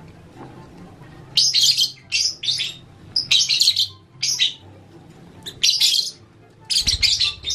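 Lovebirds chirping: clusters of short, high-pitched chirps separated by brief pauses.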